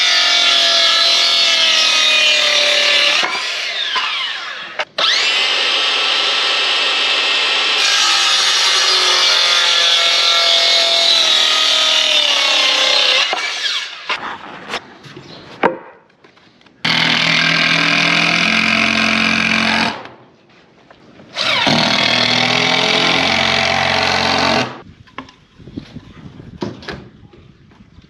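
Electric power saw cutting timber planks, with four long cuts of a few seconds each. The motor's pitch sags under load as the blade goes through the wood, then it winds down between cuts.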